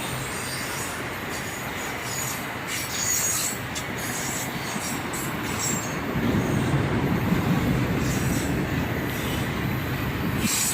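Loaded autorack freight cars rolling past, with a steady rumble and intermittent high wheel squeal; the rumble grows louder from about six seconds in.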